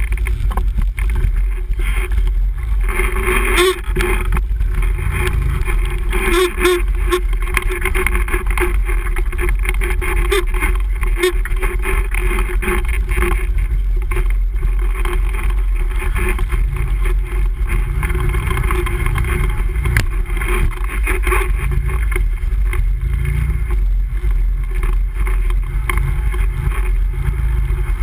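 Can-Am Renegade ATV's V-twin engine running steadily as the quad rides into a muddy water hole.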